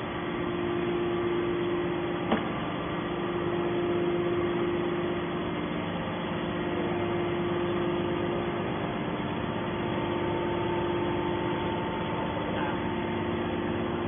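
Hydraulic scrap metal baler's power unit running with a steady hum, with a single sharp click about two seconds in.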